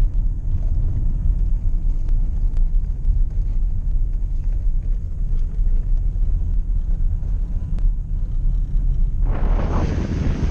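Steady low rumble of a car driving on a country road. About nine seconds in, loud wind noise on the microphone starts suddenly.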